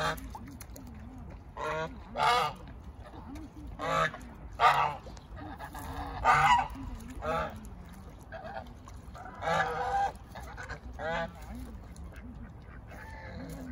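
Domestic geese honking: about ten loud, pitched calls at irregular intervals, several in quick pairs, and a fainter call near the end.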